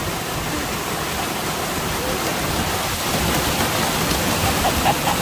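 Steady rush of water from a waterfall, an even hiss with no let-up. A few faint short voice sounds come in near the end.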